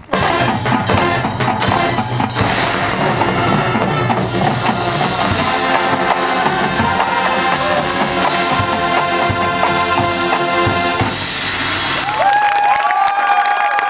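Drum and bugle corps brass and percussion playing a loud closing passage, starting with a sudden full-ensemble hit. About twelve seconds in the music gives way to the crowd starting to cheer.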